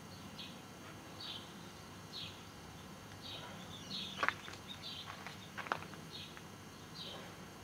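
A small bird repeating a short high call about once a second over quiet countryside background. In the middle, a busier run of chirps with two short, sharp, louder notes.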